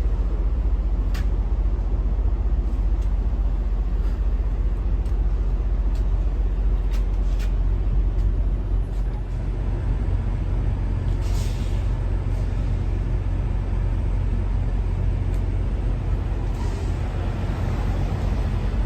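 Truck's diesel engine idling steadily, with a short hiss of compressed air a little past the middle and a few light clicks and taps.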